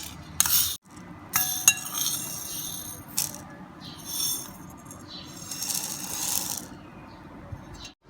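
Dry toasted mung beans rattling into a glass blender jar in several short pours, with a clink against the glass about a second and a half in.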